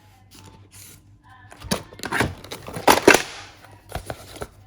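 Plastic box of press-on nail tips being pulled out of its kit packaging and handled: a run of sharp clicks and knocks, the loudest pair about two to three seconds in, with a brief rustle.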